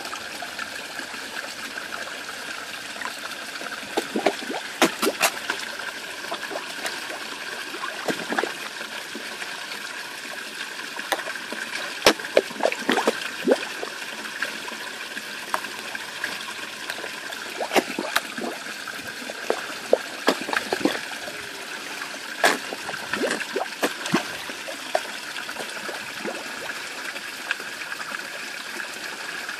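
Steady trickle of running water into a pond, broken by irregular sharp splashes as sturgeon and carp break the surface to take floating food pellets.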